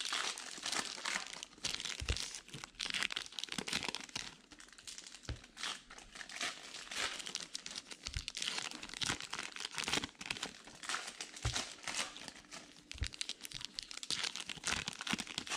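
Plastic wrappers of baseball card packs crinkling and tearing as packs are ripped open and handled by hand, with a few low thuds along the way.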